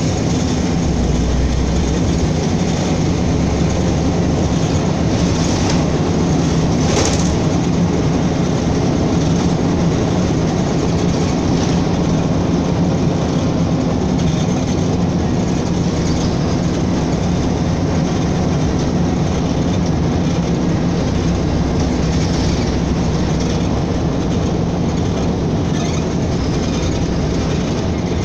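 Steady cabin noise of a LiAZ-5292.22 low-floor diesel city bus under way: a steady low engine hum with road and body noise. A brief click about seven seconds in.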